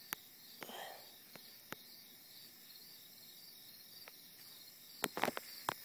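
Crickets chirping faintly and steadily, with a few sharp clicks, several close together near the end.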